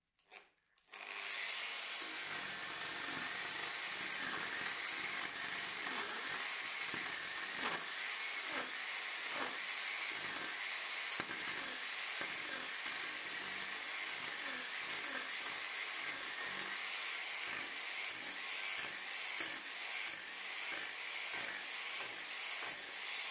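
Angle grinder fitted with a bladed wood-carving disc, spinning up about a second in and then running while the disc cuts into a block of wood in quick repeated strokes. Its blades take the wood off in cuts rather than as fine dust. It is switched off at the very end and winds down.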